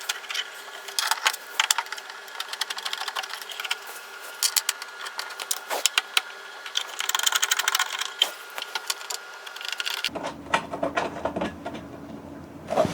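Screws being driven in to fasten a photo booth faceplate: a fast, dense mechanical clatter of clicks. About ten seconds in it gives way to sparser handling knocks.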